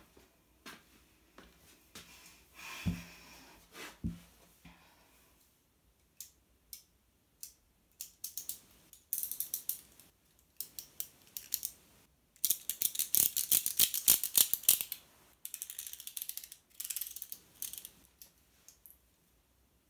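A snap-off utility knife's blade being slid in and out, making fast runs of ratchet-like clicks in several spells. Before that there are a couple of soft thumps and some rustling.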